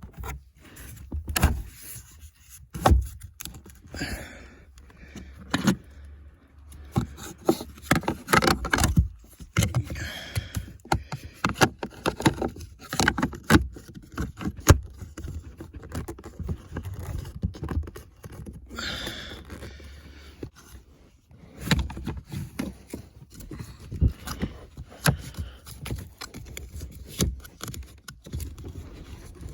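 Irregular plastic clicks, knocks and scraping as a cabin charcoal filter and its plastic housing cover are worked loose by hand under a car's dashboard.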